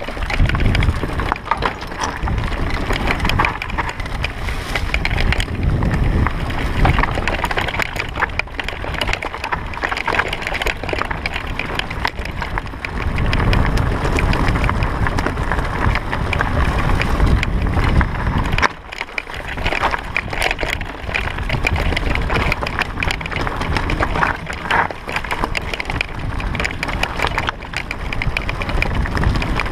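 Mountain bike descending a stony dirt singletrack at speed: tyres crunching over stones and roots and the bike rattling with a constant stream of clicks and knocks, over a low rumble of wind on the microphone. The noise eases briefly about two-thirds of the way through, then picks up again.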